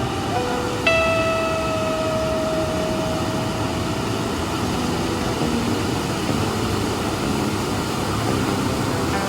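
Surf-rock background music: a single guitar note is struck about a second in and rings out, fading over about three seconds, over a steady rushing wash.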